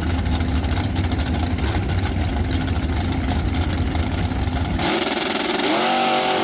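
An engine running steadily, which cuts off abruptly just under five seconds in and gives way to a hiss and a rising, then level, pitched tone.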